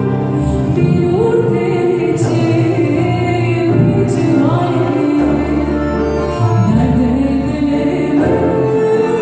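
Choir and orchestra performing a song: held sung notes, some wavering, over continuous instrumental accompaniment with a steady low bass.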